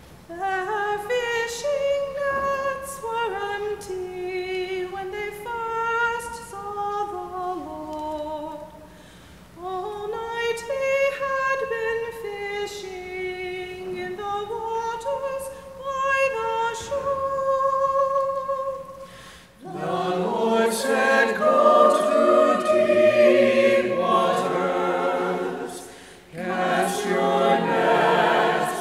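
A lone female voice sings a slow melody unaccompanied. About two-thirds of the way in, the full church choir comes in singing in harmony, much louder, with a brief breath pause shortly before the end.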